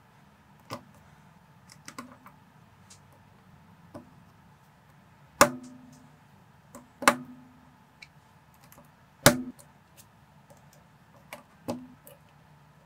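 Plastic building bricks being pressed and snapped together by hand: scattered light clicks, with three louder snaps about two seconds apart in the middle.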